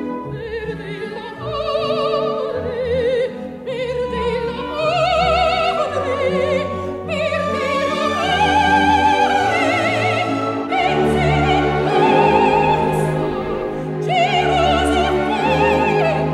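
Operatic singing with orchestra: a high voice holds long notes with a wide vibrato, in phrases over sustained orchestral chords.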